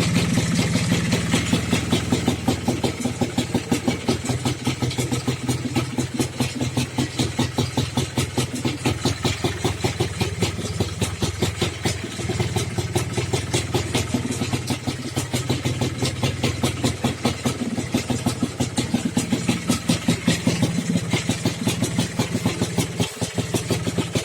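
An engine idling with a steady, even beat.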